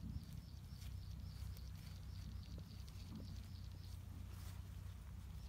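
Faint outdoor ambience in a field: a low steady rumble with a faint hiss above it.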